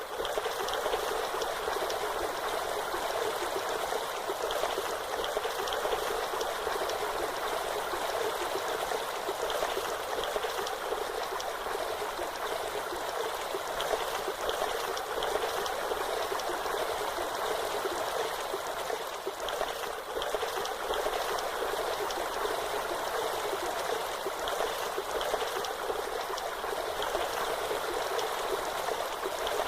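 Waterfall: a steady, unbroken rush of falling water, its hiss sitting in the middle and upper range with little deep rumble.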